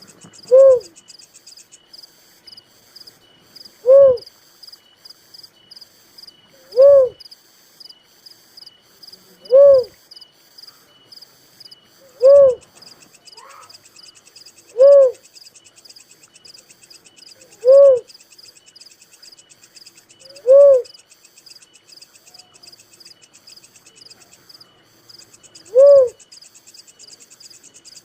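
A cuckoo-dove (uncal, also called tekukur merah) gives a single short, arched hooting note about every three seconds, nine times, with one longer pause near the end. Insects chirp steadily behind it.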